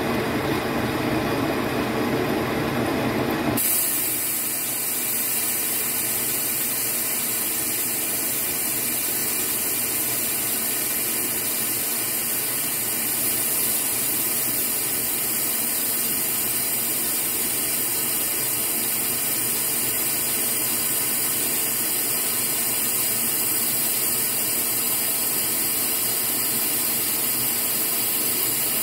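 Metal lathe running with a boring bar cutting inside the bore of the spinning workpiece: a steady machining noise that turns abruptly into a brighter hiss about three and a half seconds in.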